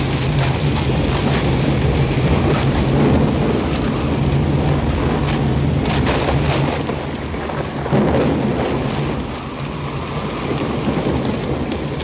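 Soundtrack thunderstorm: heavy rain falling steadily with thunder rumbling low underneath, and a sudden louder crack about eight seconds in.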